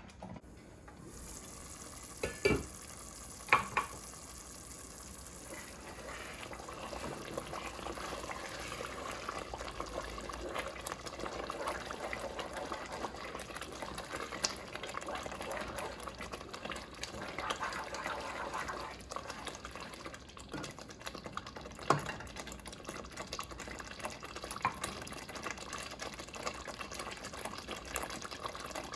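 Thick kulet of onion, chili powder and oil bubbling steadily in a pot over low heat, stirred with a wooden spoon. There are a couple of sharp knocks a few seconds in and another about two-thirds of the way through.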